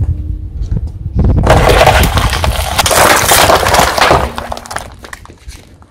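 A car tyre rolls over cardboard Sihirli Kutu candy boxes and crushes them and their wrapped candy and toys. It makes a dense crackling and crunching that starts about a second in, lasts about three seconds, and then tapers off. A low rumble comes before the crunching.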